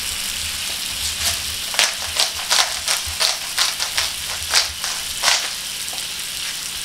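Salmon steaks and asparagus sizzling steadily on an electric griddle. Over the sizzle, a hand-twisted spice grinder gives about ten short crunching grinds, roughly two a second, from about a second in until a little past five seconds.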